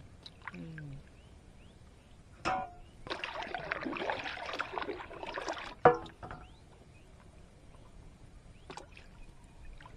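Water splashing and swishing for about three seconds as a hand works in the river beside a wooden boat, with a sharp knock before it and a louder knock just after it.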